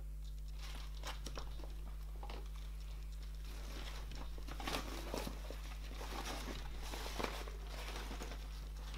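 Rustling of a nylon skate bag and light knocks of quad roller skates being lifted out and handled, with small scattered clicks, over a steady low hum.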